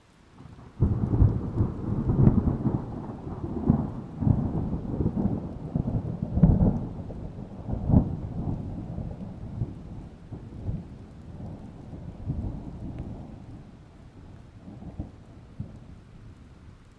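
A long peal of thunder that breaks in suddenly about a second in, with several loud cracks in its first half, then rolls on and slowly fades, over the hiss of falling rain.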